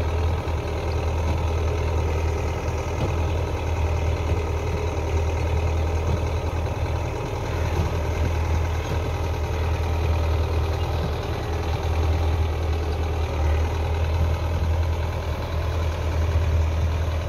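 Belarus 510 tractor's four-cylinder diesel engine running steadily under load, pulling a mounted potato planter through the furrows.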